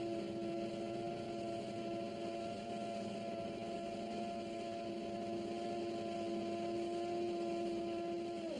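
Steady electric machinery hum with two held tones over a hiss: a crane winch sound effect as a small yellow submersible is swung and lowered onto a ship's deck. It cuts off sharply at the end.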